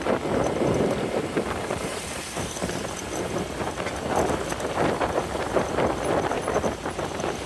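Motorbike on the move: wind rushing over the microphone, with the engine and road noise underneath.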